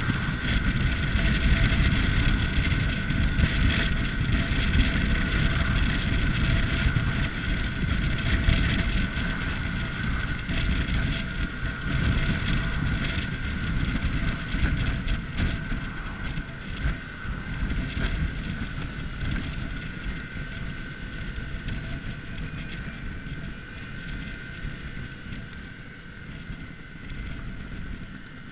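Riding on a Vespa GTS Super Sport 125 scooter: its single-cylinder four-stroke engine drones steadily under heavy wind rumble on the microphone. The sound eases off and gets quieter toward the end.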